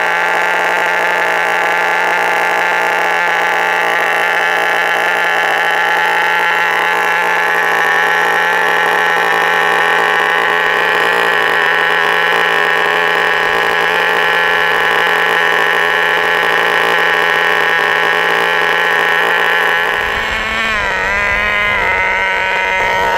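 HPI Nitro Star T-15 glow-fuel engine of a 1/10 nitro touring car running steadily at a high-pitched idle while warming up. About twenty seconds in, its pitch wavers up and down as the car pulls away, and a low rumble comes in.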